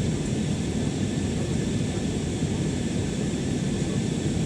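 Steady roar of an Airbus A321's IAE V2500 jet engines, heard from inside the passenger cabin, deep and even with a faint high whine over it.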